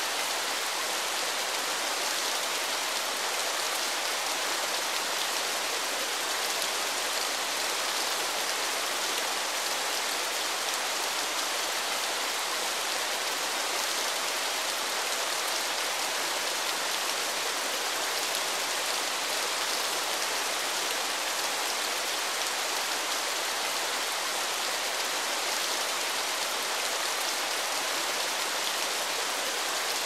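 Steady rushing of a waterfall and the white-water river below it, an even hiss-like noise with little bass.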